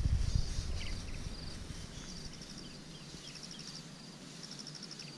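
Outdoor ambience of high, rapidly pulsed chirp trains from insects repeating throughout, with a few short bird chirps in the first few seconds. Low rustling and handling noise at the start fades out over the first second or two.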